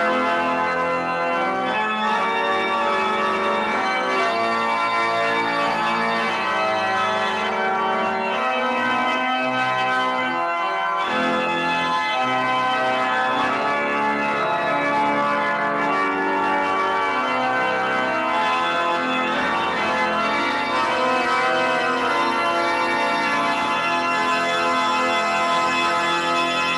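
Organ playing slow, sustained chords, with the bass dropping out briefly about ten seconds in.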